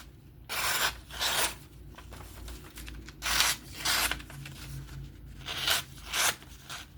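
A knife edge drawn in short strokes, about six swipes in three pairs, each swipe a brief burst of noise.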